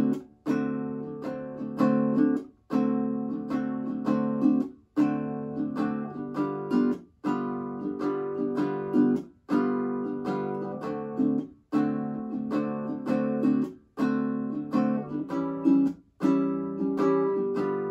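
Baritone ukulele strumming a 12-bar blues in D, changing through D7, G7 and A7 chords. A steady down-up strum pattern with a muted chop that cuts the sound off briefly about every two seconds.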